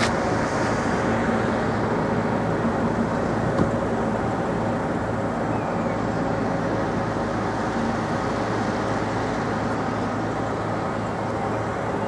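Steady road traffic noise with a low hum running under it.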